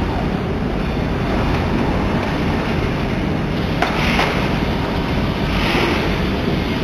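Steady, loud machinery noise of an automatic soldering setup, with a sharp click about four seconds in and two short hisses soon after.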